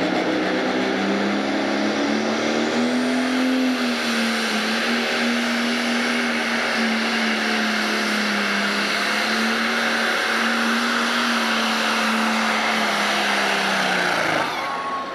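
International 1066 Pro Stock pulling tractor's diesel engine running flat out under load as it drags the sled. Its pitch climbs about three seconds in, holds with a slight waver, and falls away near the end.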